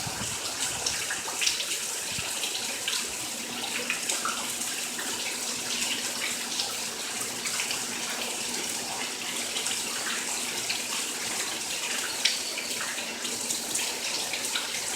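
Heavy rainwater running and splashing steadily, a constant hiss of water dotted with many small splashes.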